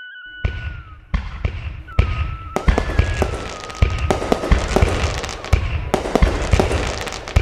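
Fireworks sound effect: a rapid string of bangs and crackling bursts starting about half a second in and growing denser after about two seconds, with a thin whistling tone running over them.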